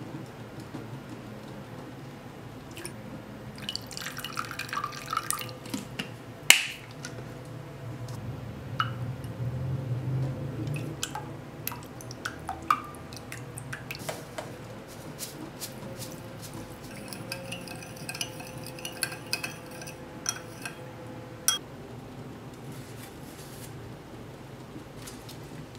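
Liquid seasonings poured from bottles into a ceramic bowl, with scattered clicks and clinks of flip-top bottle caps and glass against the bowl. A sharp knock about six and a half seconds in is the loudest sound.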